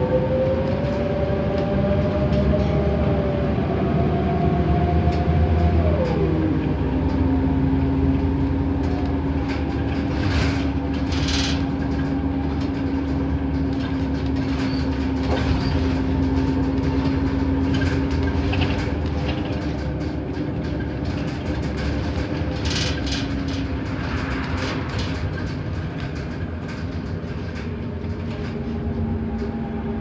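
Inside a NABI 31 LFW bus under way: the Cummins Westport ISL G natural-gas engine and Allison B300R automatic transmission run with a whine that rises in pitch as the bus accelerates, drops sharply about six seconds in as the transmission shifts up, then holds a steady cruising tone. A few short interior rattles come and go.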